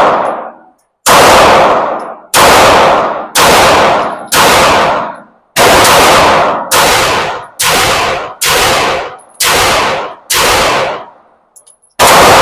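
Semi-automatic pistol fired in slow succession: about ten shots, roughly one a second, each ringing out in a long echo off the walls of an indoor range.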